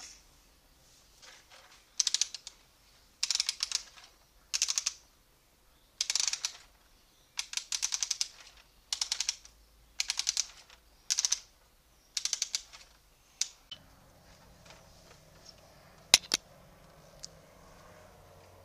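The plastic ratchet mechanism of a Bruder Liebherr toy crane being worked by hand, making about ten quick runs of rapid clicks, then a single sharp click near the end.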